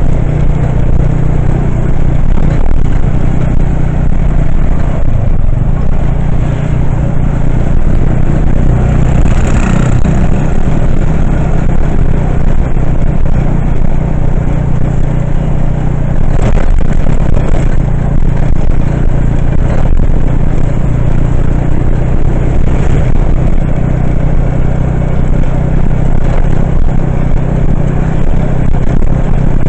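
Steady engine and road noise from riding in a moving vehicle: a constant low drone with a few brief swells of louder noise, the clearest about ten seconds in.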